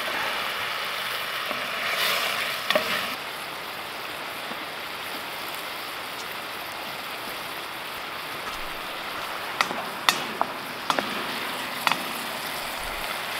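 Red wine and diced onion, celery and carrot sizzling steadily as the wine reduces in an aluminium Dutch oven, a little louder about two seconds in. Near the end a wooden spoon stirs and knocks a few sharp clicks against the pot.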